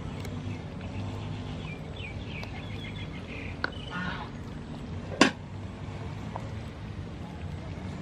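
A pot of corn porridge cooking, with a steady low rumble underneath and birds chirping briefly in the first half. About five seconds in comes a single sharp knock, a wooden ladle striking the rim of the large aluminium pot.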